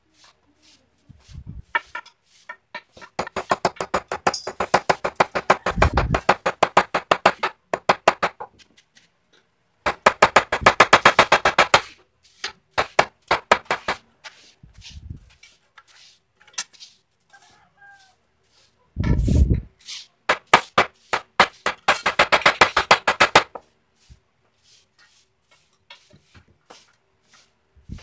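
A hammer knocking on a wooden sofa frame in quick runs of sharp blows, several bursts of a few seconds with pauses between. About two-thirds of the way through comes a single heavier, duller thump.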